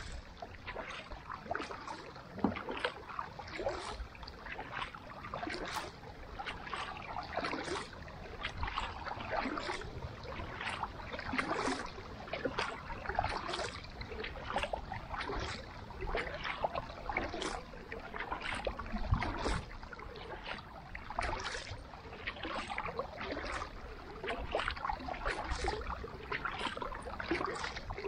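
Kayak paddling: a carbon paddle's blades dipping into the water stroke after stroke, with many small splashes and drips running on without a break.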